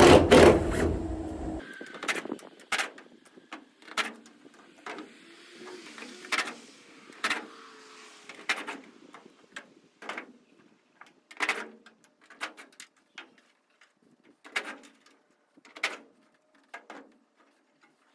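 A cordless drill-driver runs for about a second and a half backing out a roofing screw, then stops abruptly. It is followed by a string of separate sharp knocks and clinks, about one every second, from work on the metal roof panels.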